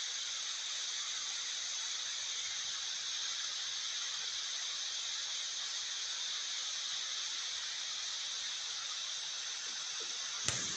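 Steady rushing hiss of a waterfall, with a single sharp click near the end.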